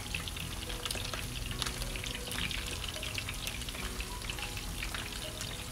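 Two butterflied, vinegar-marinated milkfish (daing na bangus) frying in hot oil in a nonstick pan: a steady crackling sizzle full of small pops. The fish were patted dry with paper towels, so the oil sizzles without heavy spattering.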